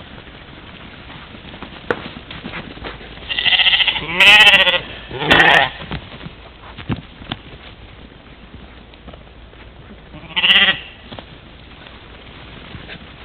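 European mouflon bleating from within a herd of ewes and lambs: a quick run of three wavering bleats between about three and six seconds in, then one more bleat about ten seconds in.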